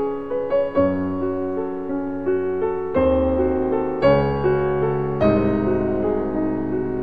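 Piano music: a melody of single struck notes over held chords, with a new deep bass note coming in about a second in and again near three, four and five seconds.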